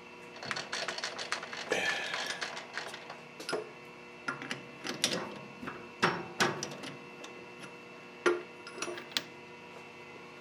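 Metal clicks and clinks from a lathe's three-jaw chuck being loosened and the steel part lifted out of its jaws: an irregular string of sharp knocks, the loudest a little past the middle, with the spindle stopped.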